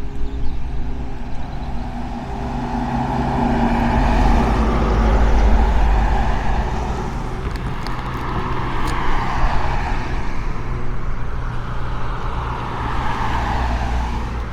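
Motor vehicles passing on a road, their engine and tyre noise swelling and fading several times over a steady low engine hum.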